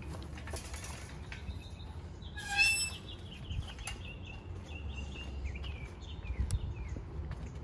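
Birds calling: one short, loud call about two and a half seconds in, among a run of quick chirps and short falling notes, over a low steady rumble.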